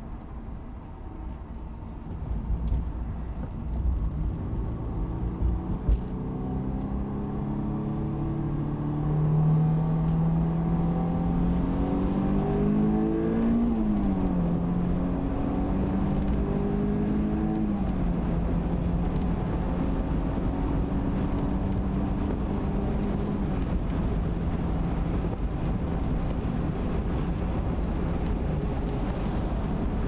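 2001 Honda S2000's stock-exhaust four-cylinder engine heard from inside the cabin with the top up, accelerating onto the interstate. The engine note climbs through a gear and drops at an upshift a little under halfway through, climbs again and drops at a second upshift soon after, then holds one steady pitch at cruising speed over a constant tyre and road noise.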